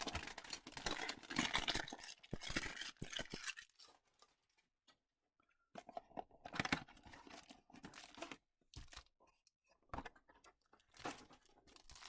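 Trading card hanger box being torn open by hand: packaging tearing and crinkling in a few seconds of dense rustling, a short pause, then more intermittent crinkling and handling as the cards are pulled out.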